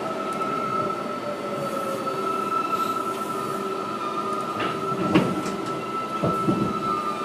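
Interior of a moving R142A subway car: steady running noise with a sustained high-pitched tone held throughout, and a couple of sharp knocks about five and six seconds in.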